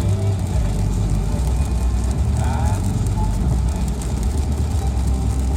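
Car driving in the rain: a steady low rumble of engine and road with a hiss over it.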